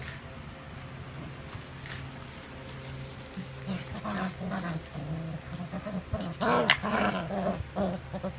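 Two three-and-a-half-week-old puppies play-fighting, giving short, wavering puppy growls that start about three and a half seconds in and are loudest near the end.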